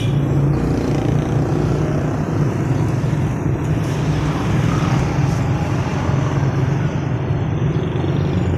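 Steady street traffic noise with a low rumble, heard from a bicycle riding through traffic of motor tricycles and motorcycles.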